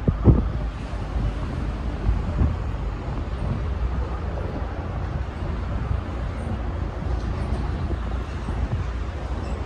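Wind buffeting the microphone: a steady low rumble with a few stronger gusts, the loudest about a quarter of a second in.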